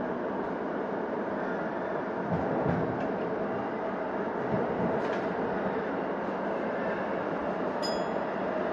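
Keihin-Tohoku Line electric commuter train running at speed, a steady rumble of wheels and motors on the rails. A short high-pitched chirp comes about eight seconds in.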